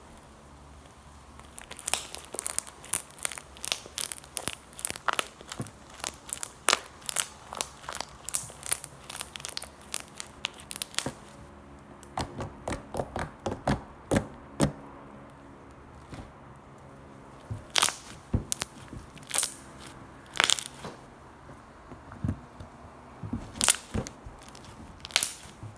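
Blue crunchy slime being squeezed and kneaded by hand, crackling and popping. A dense run of crunchy crackles starts about two seconds in and thins out after about eleven seconds to scattered single pops.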